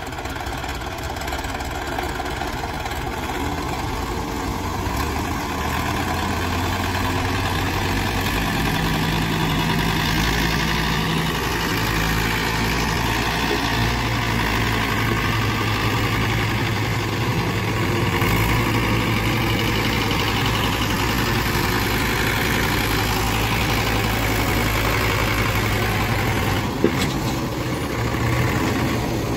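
Diesel tractor engines running hard while one tractor tows another heavily loaded one by rope. The engine note steps up a few seconds in and again about halfway, and a single sharp click comes near the end.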